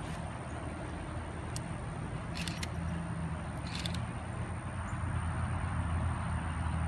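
A steady low hum under an even hiss, with a few short sharp clicks, some of them in pairs.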